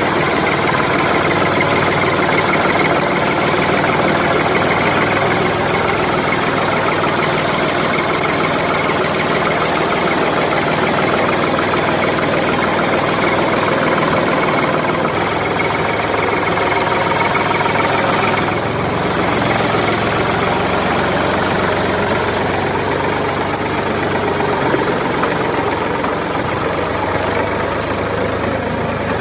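A motor running steadily with an even, continuous drone; the sound changes slightly about two-thirds of the way through.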